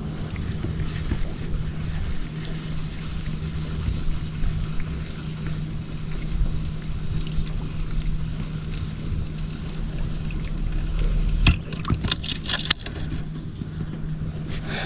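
Steady low hum of a boat's electric trolling motor running, with a few sharp clicks and knocks about three-quarters of the way through.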